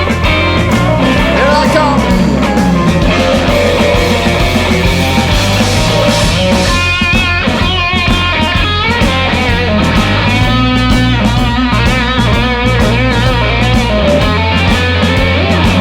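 Electric blues-rock band playing an instrumental break: electric guitar lead with string bends and vibrato over bass guitar and drum kit.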